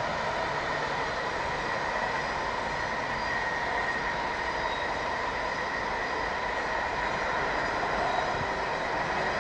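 Steady rumble of a train running on a nearby railway line, with a faint high whine held through it.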